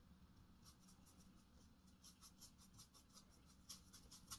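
Faint, quick scratching of a small dry brush's bristles working black and white paint together on a palette.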